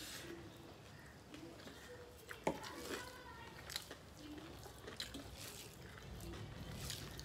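Eating sounds: fingers mixing wet rice and curry on metal plates, and chewing and lip-smacking, heard as scattered small wet clicks with one sharper click about two and a half seconds in.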